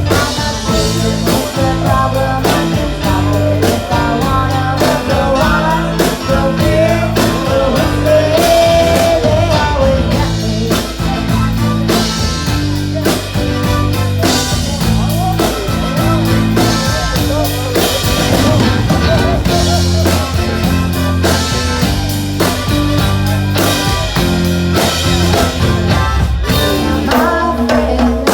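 Live rock band playing: electric guitar, bass and drum kit with a steady beat and some singing.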